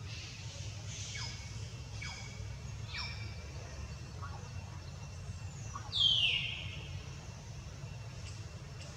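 High-pitched calls falling in pitch: three faint short ones about a second apart, then a louder, longer one about six seconds in, over a steady low rumble.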